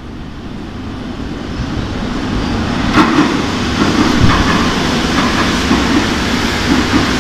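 Madrid Metro Serie 2000B train arriving at the platform: its rumble grows steadily louder as it comes out of the tunnel, then turns to a loud running rumble with wheel clatter as the cars pass close by, with a sharp click about three seconds in.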